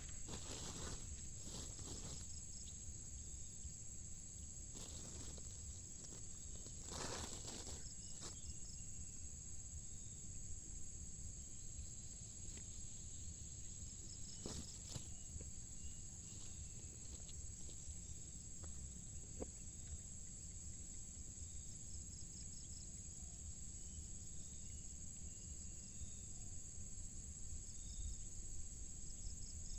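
Steady, high-pitched chorus of insects droning without a break, with a few brief rustles and light knocks from handling near the microphone, most of them in the first half.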